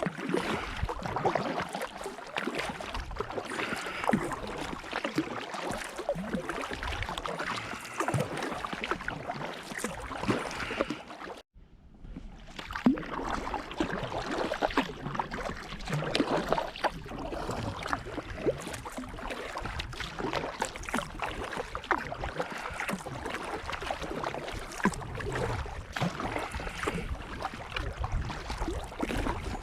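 Kayak paddling on open lake water: irregular paddle splashes and waves slapping against the kayak's hull, over a steady wash of water. The sound breaks off briefly about a third of the way through.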